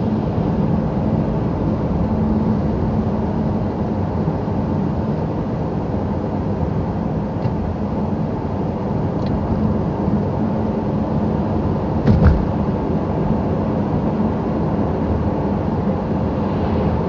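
A car driving at steady speed, heard from inside the cabin: a continuous road-noise rumble with a low engine hum underneath. A single short thump comes about twelve seconds in.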